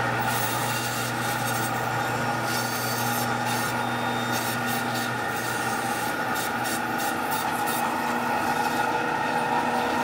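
Meat band saw running with a steady hum, its blade cutting lengthwise through a pork rib and loin section with a rasping grind.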